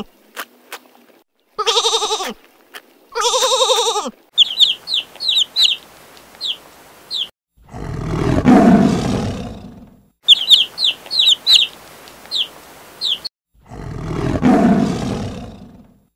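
Sheep bleating twice with a quavering call, then quick high chirps followed by a long tiger roar; the chirps and the roar come round a second time.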